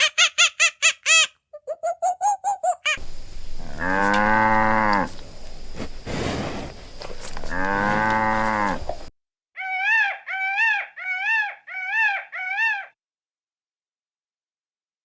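A cow mooing: two long, low moos a few seconds apart. Before them comes a fast run of short, high-pitched animal calls, and after them six short calls in quick, even succession, then silence near the end.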